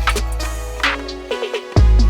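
Electronic background music with heavy sub-bass and drum hits; the deep bass cuts out briefly about a second and a half in, then returns with a hit.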